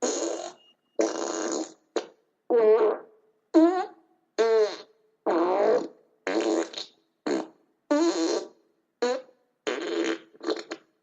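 A string of about a dozen short fart-like blasts, roughly one a second, each a buzzy, warbling tone that bends up or down in pitch, with clean silence between them.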